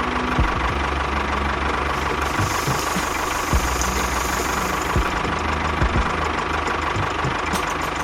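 Small engine of a home-built mini construction machine running steadily, with a few sharp knocks at irregular moments.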